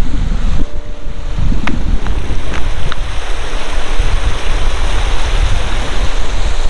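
Wind buffeting the microphone, with a low rumble throughout, over the steady rush of flowing river water that grows fuller about halfway through.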